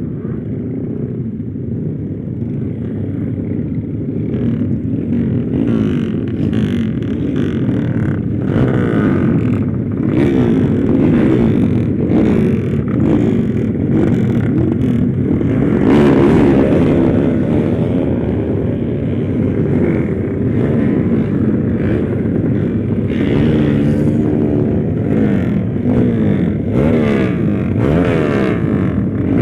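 Freshly rebuilt motorcycle engine running under way, its pitch rising and falling again and again as it revs up and eases off.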